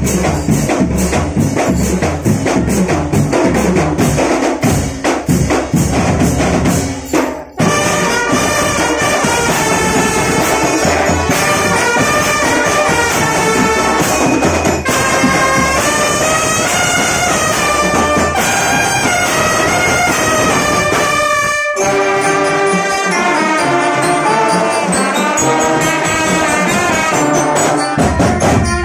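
Marching drumband: drums and percussion beat out a fast pattern, then about eight seconds in the brass section of bell-front horns and a sousaphone takes up a loud melody over the drums. The brass and drums break off for a moment about two-thirds of the way through and then play on.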